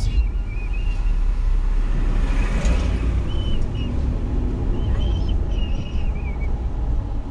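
Car driving slowly on a town street: a steady low rumble of engine and road noise.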